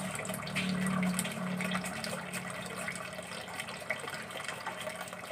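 Water running and splashing while freshly caught fish are cleaned, over a steady low hum.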